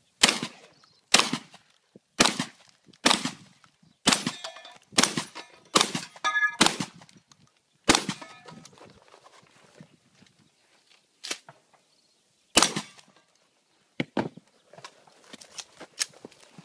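A string of gunshots fired at steel targets, about one a second for the first eight seconds, with the steel plates ringing after several hits. Fewer, scattered shots follow in the second half.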